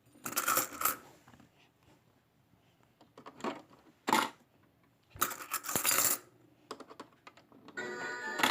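Coins clinking and dropping in several short clusters, as coins are handled and put into a mini toy claw machine; a tune starts playing near the end.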